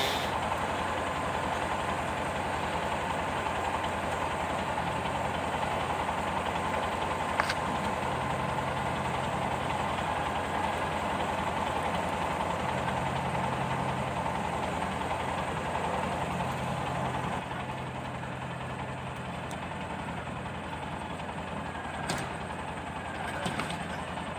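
Tractor engine running steadily at low revs, its note shifting a few times as it pushes a cut log. It drops slightly in level about two-thirds of the way through.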